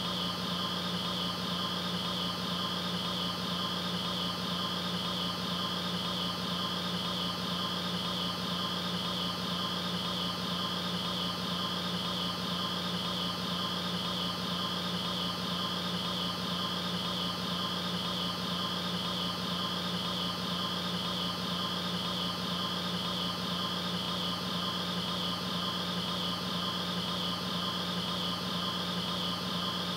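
Steady hum and hiss with a high, faintly pulsing whine, unchanging throughout.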